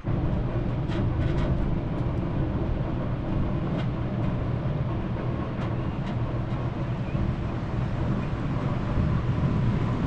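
Steady low rumble of a vehicle in motion, with a few faint clicks.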